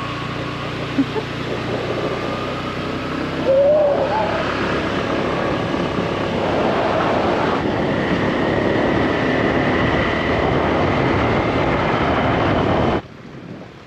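Steady rushing wind noise buffeting the microphone, with a faint high whine, broken by a couple of abrupt changes and dropping away sharply near the end.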